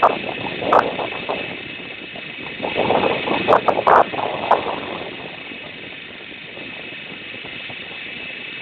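Steady whine of a small electric motor, with a few short louder bursts about a second in and again around three to four seconds in.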